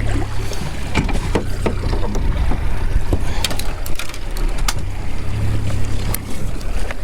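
A fishing boat's engine running with a steady low hum, with scattered sharp clicks and knocks from gear on deck.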